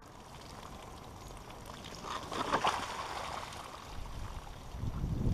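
A 120-grain .30-calibre slug from an AirForce Texan air rifle hits a hanging bag of liquid about two and a half seconds in, with a short splash and spatter as the liquid is blown out. Low dull thumps follow near the end.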